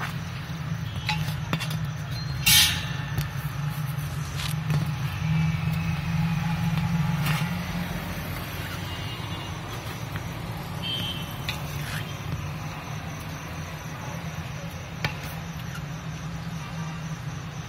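A steady low hum, with scattered clicks and knocks from the phone being handled around a nest box; one sharp knock about two and a half seconds in is the loudest.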